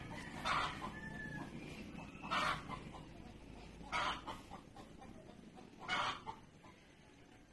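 Chickens clucking faintly in the background, a short call about every two seconds, four in all.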